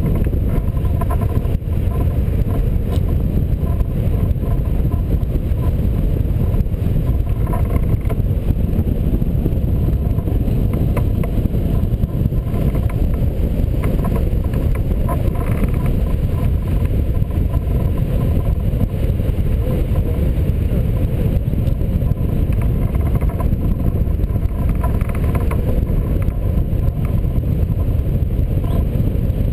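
Wind buffeting the microphone of a camera mounted on a hang glider's wing in flight: a loud, steady, low rushing roar.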